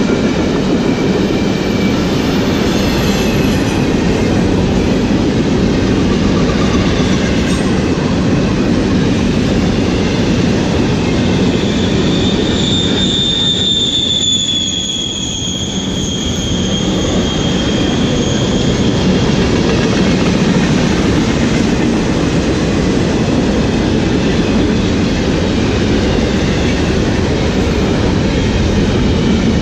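Freight train of empty double-stack container well cars rolling past close by: a steady rumble of steel wheels on the rails. Midway a high, slightly falling wheel squeal rings out for several seconds.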